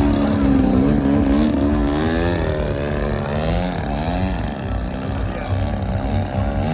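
Propeller aircraft engine running continuously, its pitch swinging up and down again and again as the plane manoeuvres.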